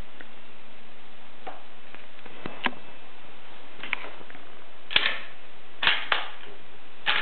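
Lever-action .30-30 rifle being handled, its metal action giving sharp clicks and clacks. They are sparse and faint at first, then louder and in quick pairs in the last few seconds as the lever is worked.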